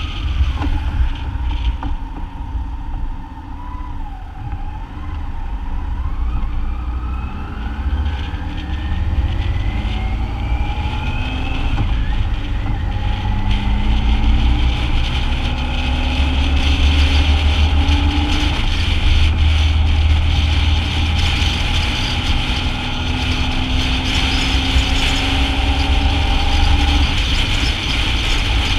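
BMW motorcycle engine running, heard from a bike-mounted camera: the engine note climbs in pitch as the bike accelerates about a third of the way in, then holds steady while cruising, over road and wind noise.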